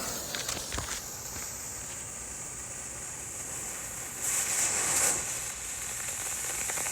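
Smoke ball firework igniting on the ground: a few faint clicks near the start, then a hiss that swells about four seconds in and carries on steadily as it pours out smoke. Crickets chirp steadily underneath.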